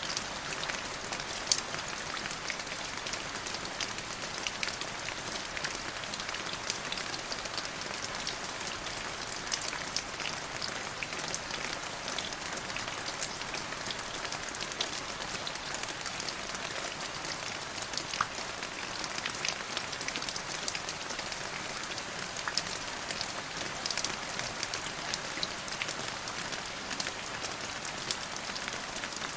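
Steady rain, with many separate drops striking close by over a continuous hiss.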